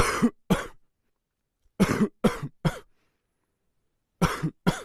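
Dry cough: seven short, sharp coughs in three bouts, two, then three, then two, with silence between the bouts.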